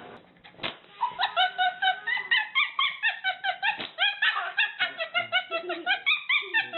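A pet dog giving a rapid run of short, high-pitched yips, about five a second, starting about a second in.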